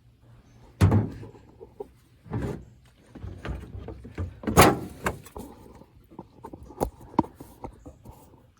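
Irregular knocks and clunks from hands-on work on an old pickup truck. The loudest is about a second in and another comes about four and a half seconds in, with lighter taps between and after.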